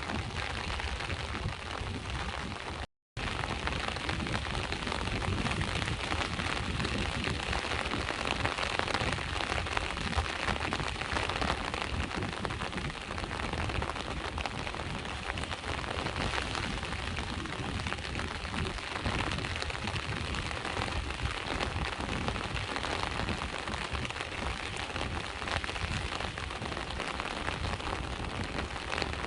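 Steady rain falling, with the low wash of sea waves beneath it. The sound cuts out completely for a split second about three seconds in.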